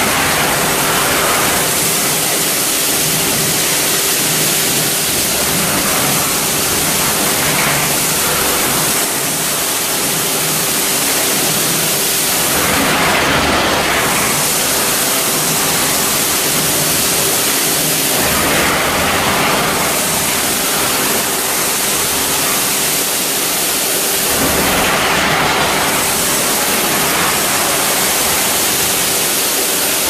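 Industrial vacuum cleaner (MaxVac Compact 110 on a stationary suction pipeline) sucking spilled animal feed off the floor through a hose and floor nozzle: a loud, steady rush of air with a faint hum under it. The hiss swells and falls back several times as the nozzle is worked over the feed.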